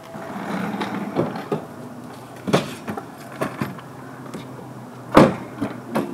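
Car door and interior sounds as someone gets into the passenger seat: rustling and a few knocks and clicks, then a loud door shut about five seconds in.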